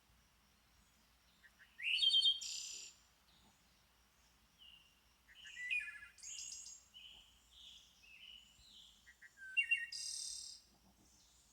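Birds chirping and calling: clusters of short, high calls about two seconds in, around six seconds, and again around ten seconds.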